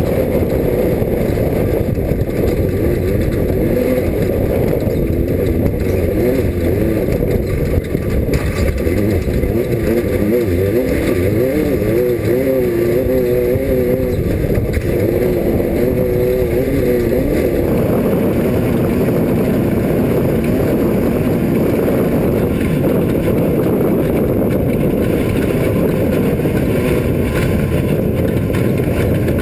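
Class 5 off-road race car's engine running hard over rough ground, a loud steady drive noise, with the engine pitch wavering up and down in the middle.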